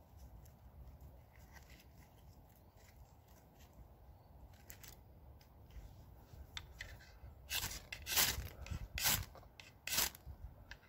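Ferro rod scraped hard with a metal striker, throwing sparks into tinder on top of a Swedish fire torch: a few faint scrapes, then four sharp strikes in quick succession during the last few seconds.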